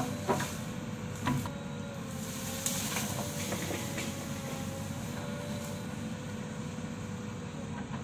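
JCB backhoe loader's diesel engine running steadily under digging load, with a wavering whine over the rumble. A couple of sharp knocks in the first second and a half as the arm and bucket work the soil.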